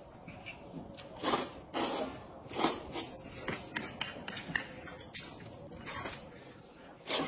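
Noodles being slurped several times in loud, short bursts, about a second in, near two seconds, near three seconds and again near the end, with quieter eating noises between.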